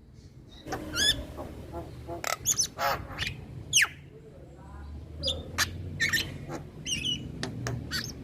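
Male Javan mynas (jalak kebo) calling: a string of sharp whistles, quick rising and falling glides and harsh squawking notes, with a steady low rumble underneath.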